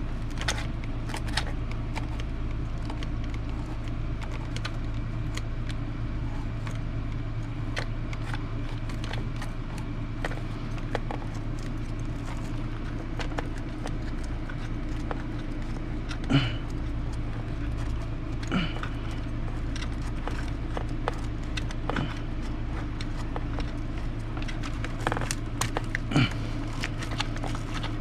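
Small metallic clicks and taps of hand tools and loose RC car parts, scattered throughout, with a few louder clacks past the middle and near the end, over a steady low hum.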